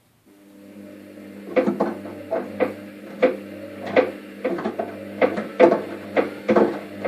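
Washing machine running: a steady motor hum comes in just after the start, and from about a second and a half in, a knocking clatter sounds roughly twice a second at uneven intervals. This is the unexplained noise the owner is trying to trace; he found no coin or metal object inside that could cause it.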